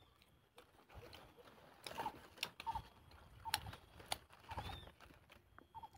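Faint chewing of a mouthful of raw, sour wild leaves (cow's-foot leaf), with irregular sharp clicks and wet mouth smacks about once a second.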